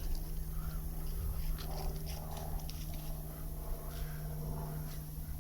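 Sounds from a dog, over a steady low hum.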